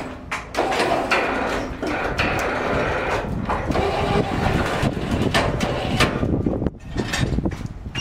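A heavy log knocking and scraping on the steel rail track of a band sawmill as it is rolled and shoved by hand, with repeated knocks over a continuous mechanical rumble.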